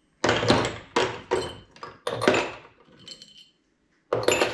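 Steel parts of a steering wheel puller and its bolts clanking and clinking as they are handled on the freed steering wheel: a run of sharp metallic knocks, each with a short ringing, bunched in the first couple of seconds and again near the end.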